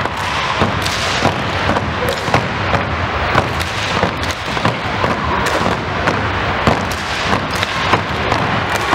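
A group of performers clapping hands in unison, sharp claps about three a second, over loud crowd noise.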